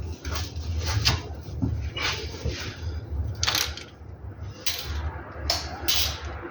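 Short scrapes and clatters of tools and car parts being handled, eight or so in a few seconds, over a low steady rumble.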